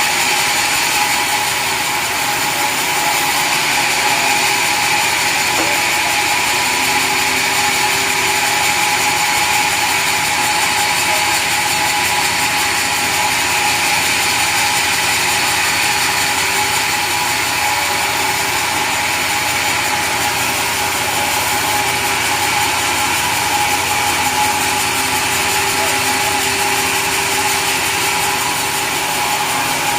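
Sawmill saw running steadily, a constant mechanical drone with a high, unchanging whine and no breaks.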